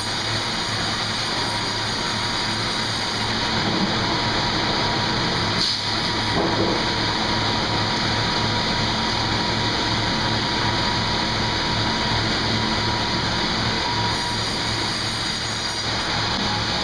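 Sawmill machinery running with a steady, unbroken noise and a faint steady whine.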